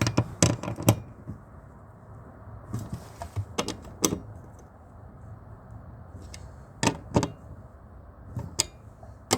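Irregular clicks and knocks of hand tools and fasteners being handled while tightening bolts: a quick cluster at the start, a few more about three to four seconds in, and pairs near the end.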